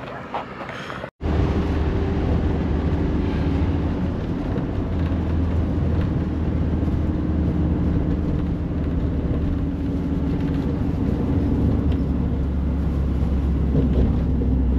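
Public bus engine running with a steady low drone and road noise. It starts abruptly about a second in, after a brief silence.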